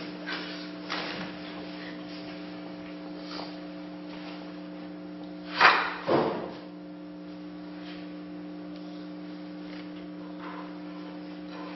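A steady electrical hum throughout, with a couple of faint knocks near the start. About six seconds in come two loud, short scraping knocks as a metal articulated desk lamp is handled and swung.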